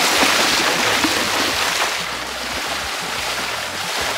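Horses wading across a river, their legs splashing through the flowing water.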